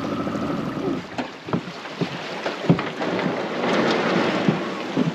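Wind on the microphone and moving river water, with a few sharp knocks. A steady high hum stops about a second in.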